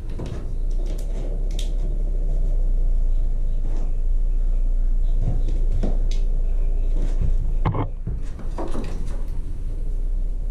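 A bamboo trim strip knocking and scraping against a wooden window frame as it is held up and pressed into place for a test fit, a few scattered light knocks over a steady low rumble.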